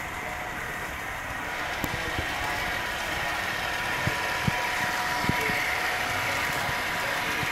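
HO scale model diesel locomotives running with engine sound from their sound decoders, getting a little louder about a second and a half in, with a few sharp clicks.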